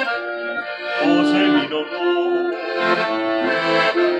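Piano accordion playing an instrumental passage between sung verses of an Italian serenade, held chords and melody notes changing every half second or so.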